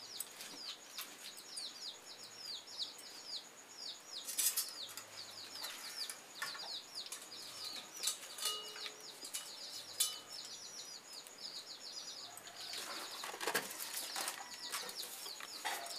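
Small birds chirping in the background: a steady run of quick, falling high chirps, several a second, with a few scattered clicks and knocks.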